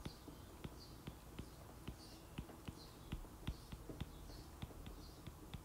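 Stylus tapping and sliding on a tablet's glass screen during handwriting: faint, irregular sharp ticks, several a second, with soft hissy strokes between them.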